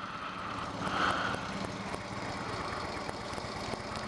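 2016 Harley-Davidson Low Rider S's Screamin' Eagle Twin Cam 110 V-twin idling steadily in neutral at a stop, through stock mufflers with their plugs taken out, heard from inside the rider's helmet.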